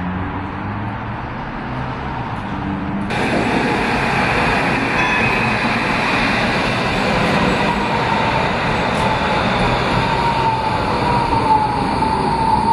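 Adelaide Bombardier Flexity Classic trams running at a platform: a steady rumble and hiss that turns suddenly louder about three seconds in, then a single whine that slowly falls in pitch as a tram slows into the stop.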